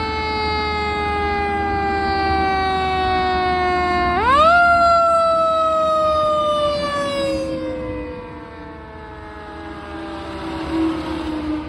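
Fire apparatus siren, a single wailing tone that slides slowly down in pitch. About four seconds in it is wound up quickly and then falls away slowly again, in the manner of a mechanical coaster siren, and it grows fainter as the trucks pass. A heavy truck engine rumbles underneath.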